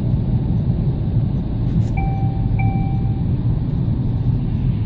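Steady road and engine rumble inside a moving car's cabin. About two seconds in, two short electronic chime tones at the same pitch sound one right after the other.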